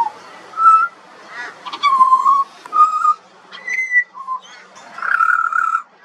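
Juvenile pied butcherbird singing: a string of short whistled notes, each under half a second and at slightly different pitches, with a longer, rougher note near the end.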